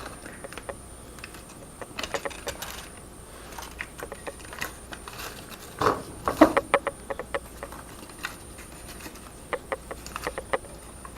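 Aluminized foil tape being handled on a metal vent pipe: scattered crinkles, crackles and light clicks in three short spells as small pieces are cut, peeled and pressed into place.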